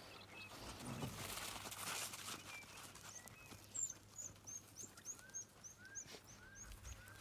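An animal's high, short rising chirps, about ten of them at roughly three a second, from about halfway through, over a faint rustle.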